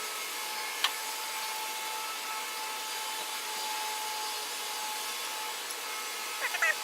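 Steady background hiss with a faint hum, broken by a single sharp click a little under a second in and a few brief squeaky chirps near the end.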